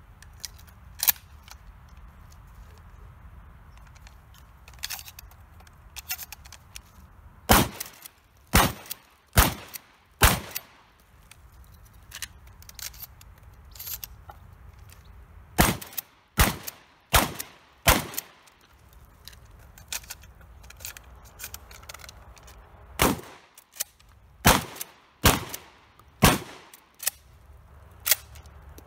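Shotgun firing in three strings of four shots, the shots about a second apart. Fainter clicks and clatter come between the strings as shells are loaded four at a time.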